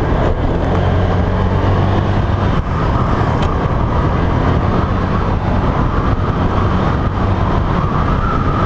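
Motorcycle engine running at a steady cruising speed, with road and wind noise over the rider's camera microphone on a rough road surface. A steady high tone comes in about three seconds in and grows louder near the end.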